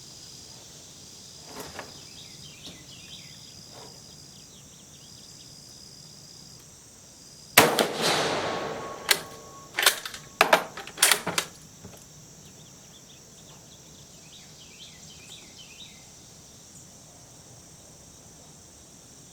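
A Carcano M91TS carbine fires one shot with a cast lead bullet load about halfway through: a sharp crack that rings out for about a second. A few sharp metallic clicks follow as the bolt is worked.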